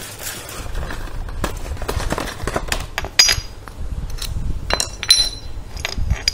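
Cast aluminium motorcycle drum-brake shoes being handled, clinking and knocking against each other and the tiled floor. There is a run of small clicks, then a few sharper ringing clinks in the second half.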